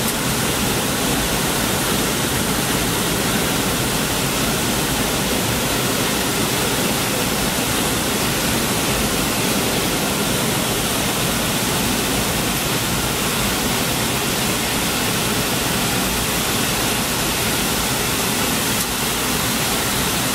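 Steady rushing cabin noise aboard a McDonnell Douglas MD-80 airliner in flight: air streaming past the fuselage mixed with the run of its rear-mounted engines, even and unchanging throughout.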